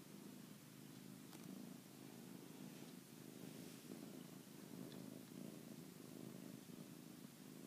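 Domestic cat purring steadily and softly, with an even pulsing rumble.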